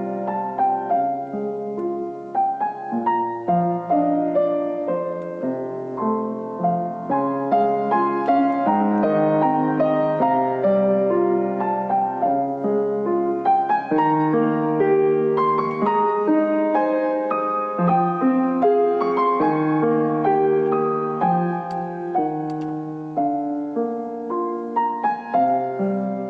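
Piano music: a melody over chords, with notes held and ringing into each other.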